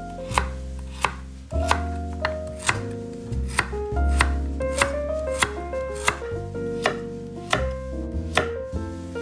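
Kitchen knife chopping carrots on an end-grain wooden cutting board: sharp knocks of the blade on the board, about two a second, over background music.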